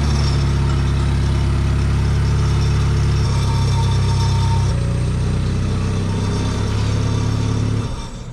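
An engine running steadily at an even, deep pitch, its tone shifting slightly twice midway. It comes up just before and dies away near the end.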